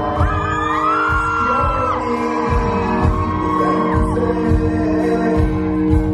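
A live band playing, with a vocal line of long held notes that slide up and down over sustained keyboard chords and a drum beat.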